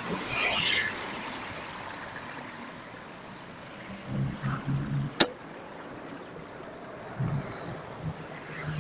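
Street traffic and wind noise on a bicycle-mounted camera, sped up to double speed, loudest in the first second as a coach passes close by. Short low hums come around four seconds in and again near the end, with one sharp click about five seconds in.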